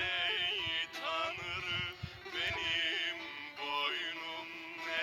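Music: a male voice singing a bending, ornamented melody over a steady held low note.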